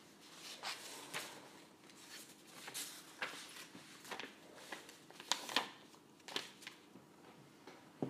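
Faint, irregular rustling broken by about a dozen sharp little clicks, like paper or handling noise.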